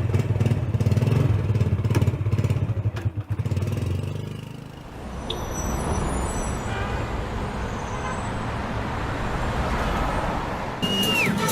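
A motor vehicle's engine running with a fast, pulsing low beat, giving way after about four and a half seconds to a steady noise of traffic and road. Near the end comes a short high squeal that drops in pitch.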